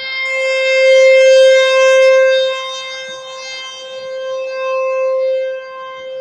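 Federal Signal Thunderbolt T-128 outdoor warning siren sounding a steady tone at one pitch, its loudness swelling and fading twice.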